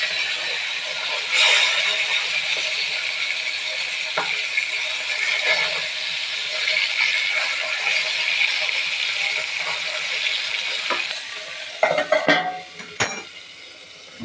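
Rohu fish pieces sizzling in hot oil in an aluminium kadai, with a metal spatula scraping and tapping against the pan as the pieces are turned. Near the end a few sharp metal clanks come as a steel plate is set over the pan as a lid. After that the sizzle goes on much quieter.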